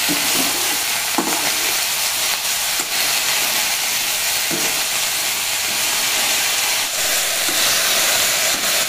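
Jamun khukhdi mushrooms frying in hot oil with onion and chilli in a kadhai: a steady sizzle, with a few light scrapes as a metal slotted spoon stirs them.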